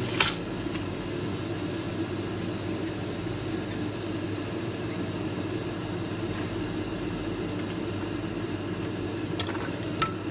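Steady low mechanical hum, like a fan or small motor running, with a few faint clicks near the start and near the end.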